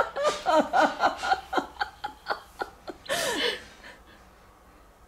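A person laughing in a quick run of short chuckles that fade out about three and a half seconds in.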